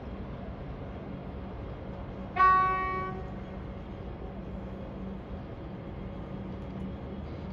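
Train horn giving one short toot, under a second long, over a steady low hum.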